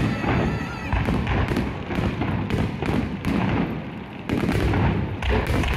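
Fireworks going off in a rapid, uneven string of sharp bangs, about three a second, over a low rumble.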